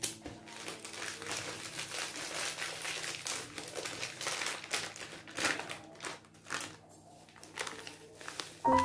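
Plastic refill pouch crinkling and rustling as it is handled, squeezed and tipped to pour out its powder, in a dense run of irregular crackles. Piano music comes in right at the end.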